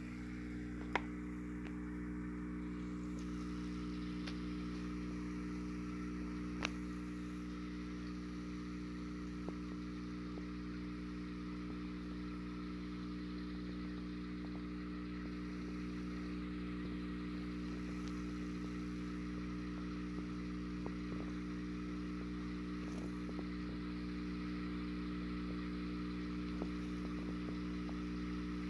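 Steady low electrical hum of mains-powered equipment, with a few faint clicks about a second in and again around seven seconds.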